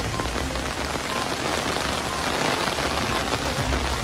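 Heavy rain pouring steadily onto a flooded street, a dense even hiss mixed with the rush of floodwater.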